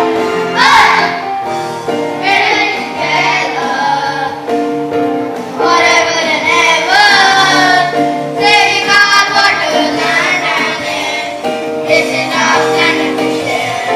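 A song playing: high voices singing phrases over steady instrumental backing.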